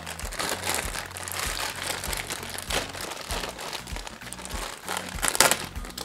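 Clear plastic bag of wiring and connectors crinkling as it is handled, with a louder crinkle about five seconds in.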